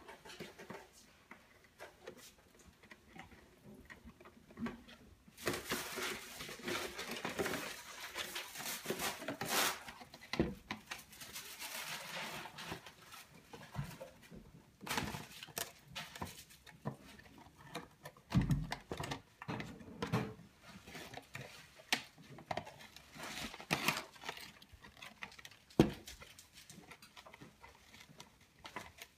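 Hand unpacking of a boxed mini football helmet: cardboard and plastic packaging rustling, crinkling and scraping, with scattered knocks as the box and insert are handled. The rustling is densest for several seconds starting about five seconds in.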